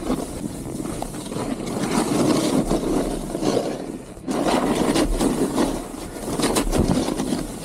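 Snowboard base and edges scraping over snow while riding downhill, a rough hiss that swells and eases with the turns and drops out briefly about four seconds in.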